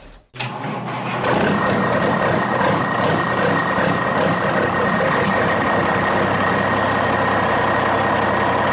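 A truck running: a loud, dense, steady mechanical noise with a constant whine. It starts abruptly just after the start, grows louder about a second in, and cuts off suddenly at the end.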